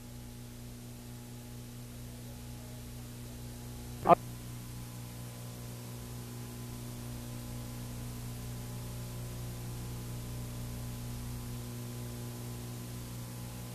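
Steady electrical hum with hiss on the audio track of an early-1980s analog video recording, with one sharp click about four seconds in.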